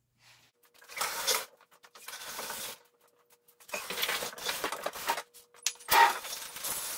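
A heavy half-built chicken coop of plastic shed panels on a plastic shed floor being shoved and turned around, scraping and creaking in four bursts, with a sharp knock about six seconds in.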